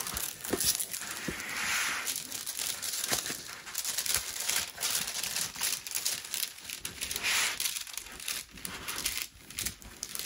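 Clear plastic cover film on a diamond painting canvas crinkling and crackling as hands lift it to let air under and smooth it back down over the glue. The crackling goes on irregularly throughout.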